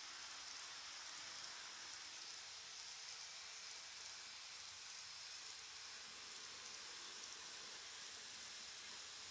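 Faint steady hiss and whir of a KATO N-gauge model train running along the track, its small wheels on the rails and its motor.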